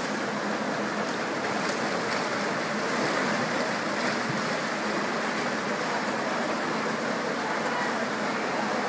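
Steady splashing of several swimmers swimming backstroke in an indoor pool, a continuous wash of water noise.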